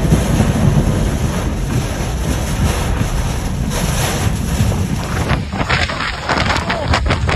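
Storm wind buffeting the microphone: a loud, steady rushing noise. About five seconds in it turns rougher, with many sharp crackling clicks.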